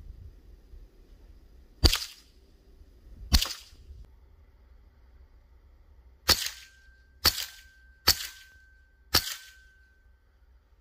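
AEA HP PCP air rifle firing six shots: two about a second and a half apart, then after a pause four more at roughly one-second intervals.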